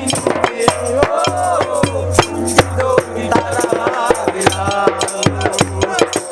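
Upbeat music with rapid, rattling percussion strikes, a wavering melody line and a low bass pulse.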